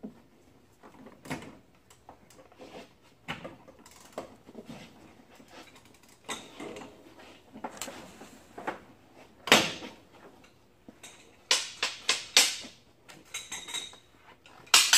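Irregular metallic clanks and knocks of tools on a Jeep Cherokee XJ's rusted rear suspension, with quick clusters of rattling strikes toward the end.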